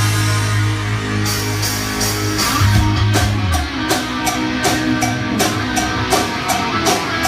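Rock band playing live: electric guitar, bass and drum kit, all coming in together at the start, with long held low notes under regular drum hits.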